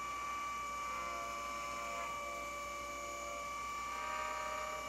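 CNC mill spindle humming steadily as a ball-end mill makes a pass through the fixture block, heard as a steady whine of several high tones over a low hum.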